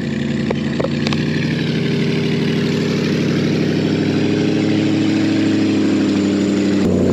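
Pickup truck's 6.5-litre engine running with no exhaust system fitted, sounding rough, getting slowly louder as the truck drives closer.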